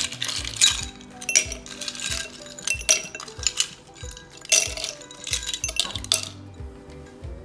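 Ice cubes dropped one at a time into a tall cut-glass tumbler, clinking against the glass and each other in a string of sharp clinks that stops about six seconds in. Background music plays underneath.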